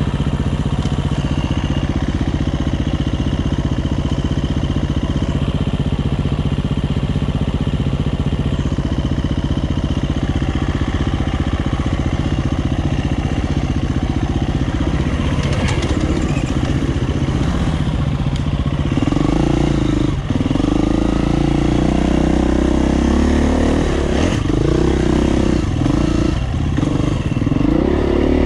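Dirt bike engine idling steadily, then, about two-thirds of the way through, revving up and down unevenly as the bike pulls away and rides the trail.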